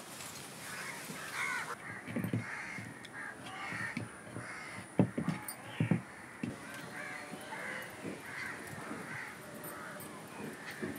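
Crows cawing repeatedly in the background, with a few sharp knocks near the middle, the loudest of them about five and six seconds in.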